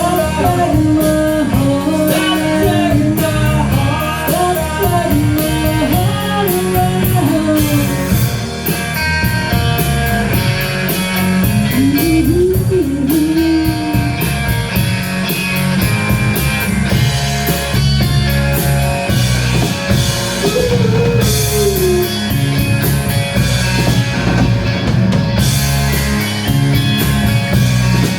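Blues-rock band playing: a bending lead guitar line over a steady bass and drum kit, with cymbals ticking in an even beat.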